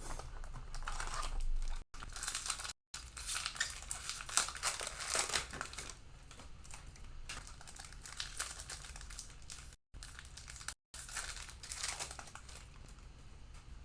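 Plastic cello-pack wrappers of trading cards crinkling and tearing as packs are handled and ripped open. The audio cuts out completely for an instant four times.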